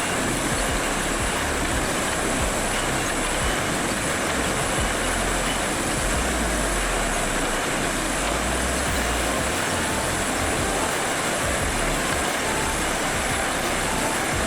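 Heavy machinery running steadily: a continuous low engine rumble under constant mechanical noise.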